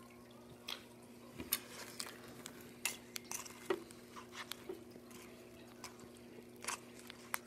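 A spoon stirring in a container of chili with crackers, making scattered light clicks and scrapes against the container.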